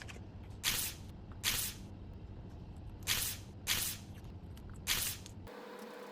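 Anger-baby squishy stress toy being squeezed, making five short squishes over about four seconds.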